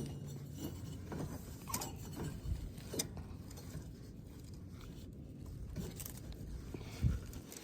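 Scattered light clicks and rattles of metal parts being worked loose by hand on a riding lawnmower's deck linkage, over a faint low hum.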